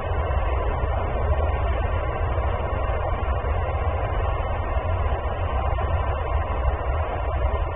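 Steady low rumble of outdoor background noise, even throughout, with no bird calls.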